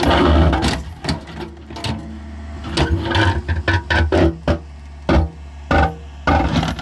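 Backhoe digging in rocky ground: its engine runs steadily beneath a string of sharp knocks and scrapes as the steel bucket teeth break and drag rock, loudest in the first second.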